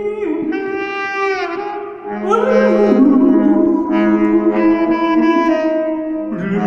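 Saxophone playing a free, improvised line of held notes and bending glides over a steady low sustained tone.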